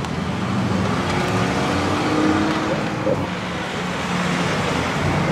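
Cars driving slowly past, engine and exhaust at low speed: a Toyota GR Supra, then an Acura Integra.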